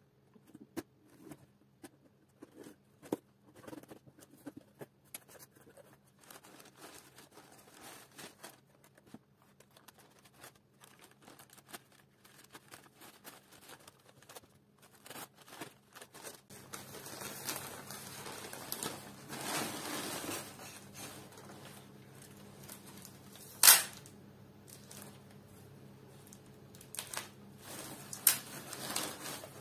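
A cardboard parcel being opened by hand: small scattered clicks and scrapes of tape and box flaps, then paper packing crumpling and rustling as a paper-wrapped potted plant is lifted out and unwrapped. There is a sharp tear of paper about two-thirds of the way through, the loudest sound, and a smaller one near the end.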